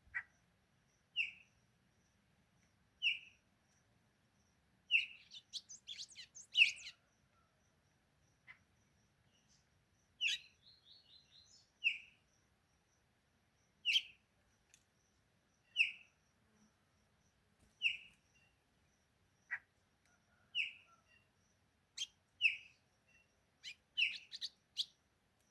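A small songbird called a golado, perched on a hand, giving short chirping calls about every two seconds. It breaks into brief runs of quick notes about five to seven seconds in, around ten seconds in, and again near the end.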